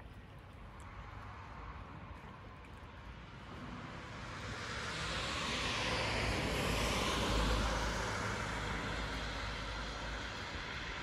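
A passing vehicle: its noise builds gradually to a peak about seven seconds in, then slowly fades.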